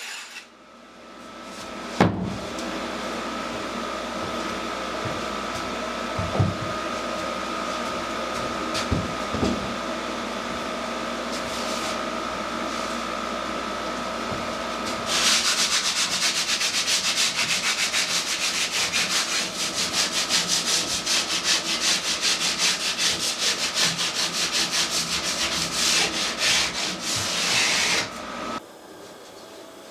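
A handheld electric power tool working wood. It starts up about two seconds in and runs steadily. From about halfway it cuts in louder with quick, rhythmic back-and-forth passes, then stops near the end.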